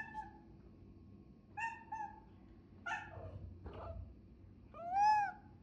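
A cat meowing repeatedly, about six short meows. The last, about five seconds in, is the loudest and rises and then falls in pitch.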